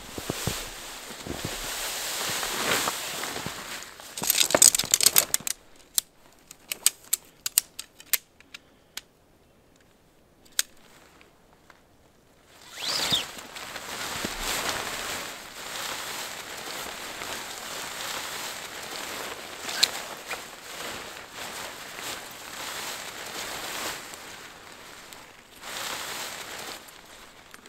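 Tent fabric and groundsheet rustling and crinkling as a tent is unpacked and spread out. About four seconds in there is a quick cluster of sharp clicks and crackles, followed by scattered single clicks over a quieter stretch before the rustling resumes.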